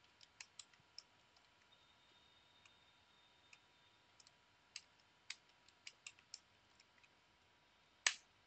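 Faint computer keyboard keystrokes typing a password, in two short runs, then one louder click near the end.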